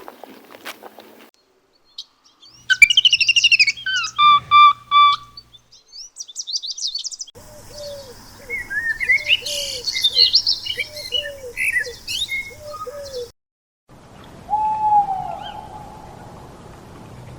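Bird calls in separate clips, one after another: clear whistled notes that drop in pitch, then a fast run of chirps over a lower call repeating about twice a second, then a single longer call near the end.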